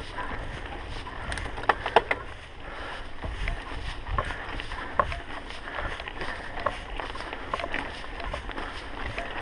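Mountain bike rolling over a rough dirt and gravel track: tyre noise and a low rumble, with the bike rattling in many short sharp clicks and knocks, the loudest pair about two seconds in.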